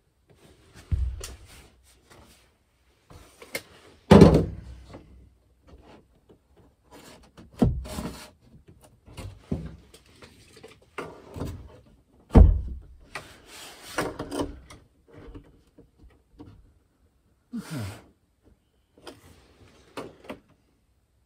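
Wooden cabinet panel being handled and nudged into place against a van wall: several dull knocks and thumps of wood, with rubbing and scraping of hands and wood in between.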